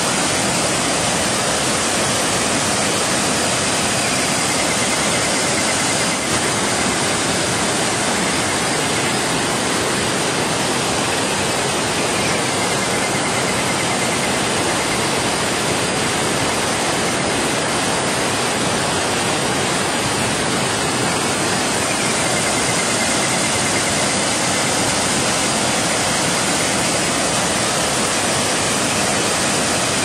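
Small waterfall: water rushing and splashing down over boulders in a loud, steady rush.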